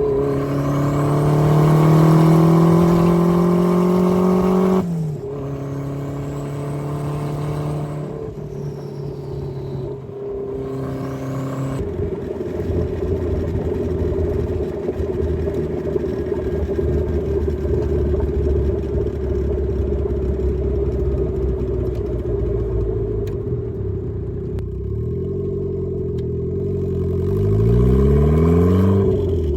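Turbocharged Mazda Miata four-cylinder engine pulling hard with rising pitch, then shifting up about five seconds in. It runs steadily for a long stretch, then rises again twice near the end with a drop in pitch at each shift.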